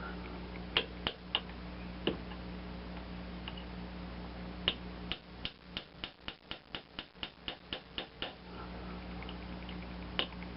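Light, sharp taps and clicks of small parts being worked as a soldered wire terminal is pressed down into an outboard kill switch body. A few taps are scattered early, then a quick run of about five a second lasts for a few seconds.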